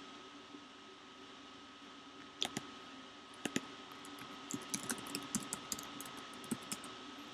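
Typing on a computer keyboard: a few separate keystrokes, then a quick run of keys, over a faint steady hum.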